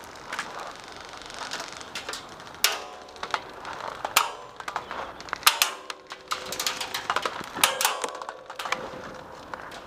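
Airsoft gunfire: many irregular sharp snaps and cracks, with a few brief stretches of metallic ringing, as incoming suppressing fire strikes a tyre-and-barrel barricade.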